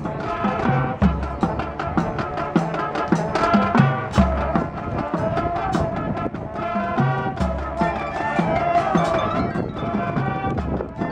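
High school marching band playing: brass over a steady beat of marching and front-ensemble percussion, with a few heavy low drum hits.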